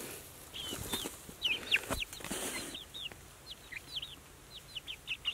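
Young chickens peeping: many short, high chirps that each drop in pitch, coming singly and in quick runs throughout. A few brief rustles in dry grass come around two seconds in.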